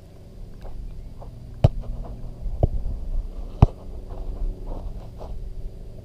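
A football being kicked on an artificial-turf pitch: three sharp thumps of boot on ball about a second apart, the middle one softer, over a steady low rumble.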